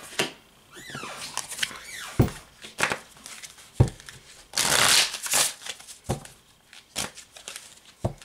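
A deck of tarot cards being handled and shuffled by hand: scattered taps and clicks of the cards, with a longer rush of cards being shuffled about halfway through.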